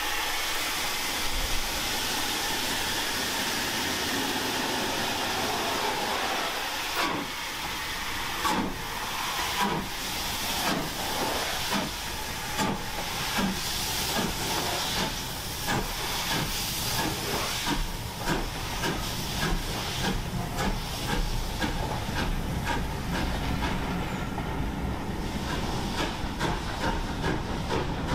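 Steam locomotive pulling away from a standstill: a steady loud hiss of steam escaping around its cylinders, then exhaust chuffs from about a quarter of the way in that quicken steadily as the train gathers speed.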